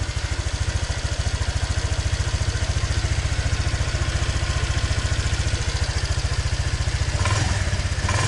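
Honda Vario 125 scooter's single-cylinder four-stroke engine idling steadily through its freshly repaired muffler, with an even, rapid exhaust pulse. The engine gets briefly louder twice near the end.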